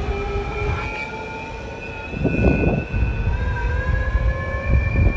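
Geared electric skateboard motors whining, several tones climbing slowly in pitch as the board speeds up, over a low road rumble. A rushing noise swells briefly about two seconds in and again near the end.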